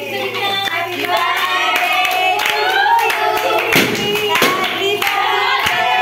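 A group of voices singing a birthday song together, with scattered hand claps.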